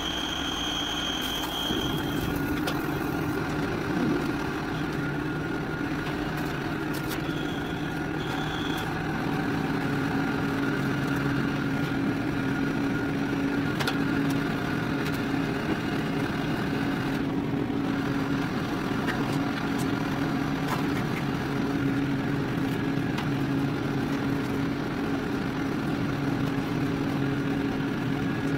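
A steady machine hum with a few steady tones that runs without a break, from a running motor or fan.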